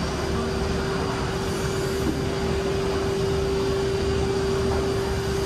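Steady mechanical rumble and hum with one constant tone held throughout: the background noise of an indoor multi-storey car park.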